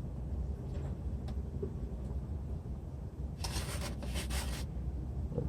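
Steady low rumble, with about a second of scraping and rustling from parts being handled starting roughly three and a half seconds in.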